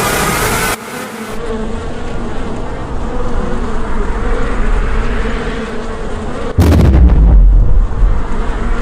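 Steady buzzing of a swarm of bees, with a loud, deep boom breaking in about six and a half seconds in.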